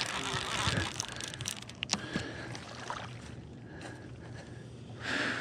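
Water splashing and swirling at the river's edge, with a sharp click about two seconds in.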